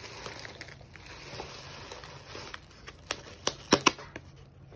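Bubble wrap and a paper card being handled, rustling and crinkling, with a quick run of sharp crackles and clicks about three to four seconds in.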